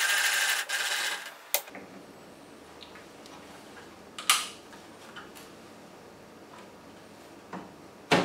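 Blade-raising handwheel of a DeWalt cordless table saw being cranked, a rapid mechanical whirring that stops abruptly about a second and a half in. A click follows, then a few light knocks and clicks from handling the saw.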